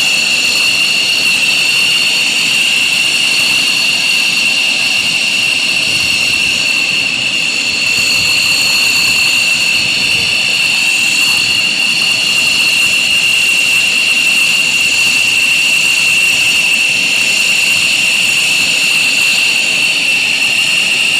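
Fighter jet engine running steadily, a loud high-pitched turbine whine held at one pitch.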